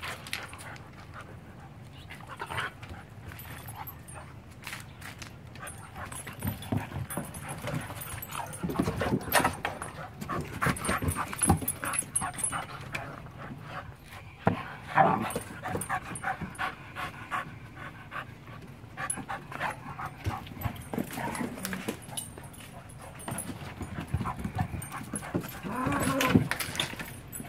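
Pit bull puppies play-wrestling on a wooden deck: panting, with paws scrabbling and bumping on the boards in flurries. There is a short dog vocalisation near the end.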